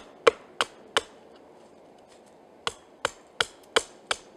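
Hatchet chopping into a stick of wood: a run of sharp chops at about three a second, a pause, then a second run of five chops.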